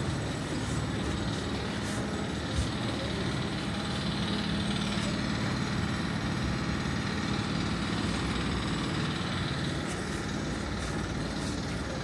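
A large engine running steadily in street noise, with a low hum that grows stronger in the middle; a single short knock about two and a half seconds in.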